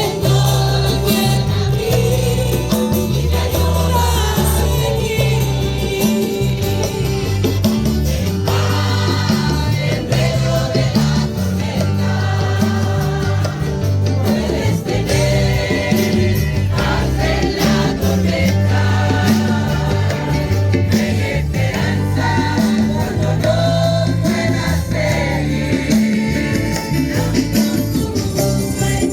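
Congregational praise music: a group singing a gospel song over a steady bass line and band accompaniment, with some tambourine.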